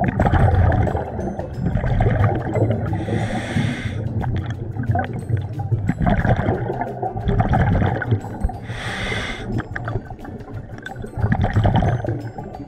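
A scuba diver's breathing heard underwater: a hissing inhalation through the regulator about 3 s in and again about 9 s in, with the low rumble of exhaled bubbles between them.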